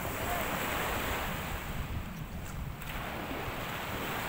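Sea waves washing around in the shallows, swelling and easing, with wind rumbling on the microphone.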